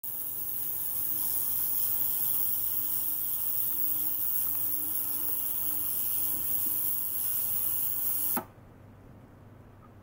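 Ultrasonic cleaning bath running with water circulating through the jar: a steady high hiss over a faint low hum. It cuts off suddenly with a click about eight seconds in, leaving only a faint trickle of water.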